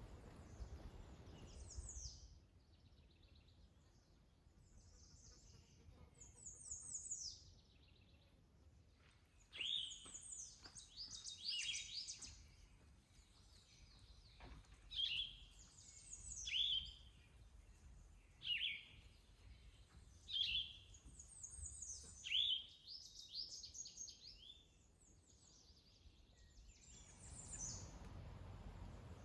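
Songbirds singing in spring woodland: many short, high song phrases that fall in pitch, repeated every second or two, thickest through the middle.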